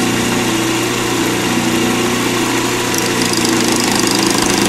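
Lathe running steadily with a square acrylic resin pen blank spinning. About three seconds in, a skew chisel starts cutting, adding a rapid high chipping as the edge strikes the blank's still-square corners: the sign of the resin being at risk of chipping out.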